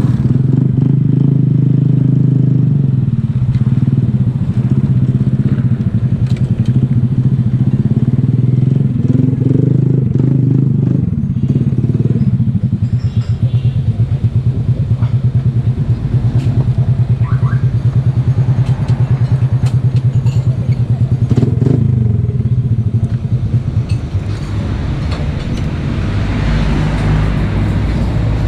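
Small motorcycle's engine running as it rides, then settling about twelve seconds in to an idle with an even putter. Near the end a broad rushing noise rises over the idle.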